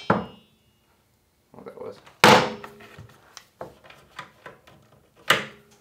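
Dead blow mallet striking the floor panel of a wooden camper-van cabinet: two heavy thuds about three seconds apart, with lighter knocks and rattles between them, as the floor is knocked loose from its joints while a spreader clamp presses them apart.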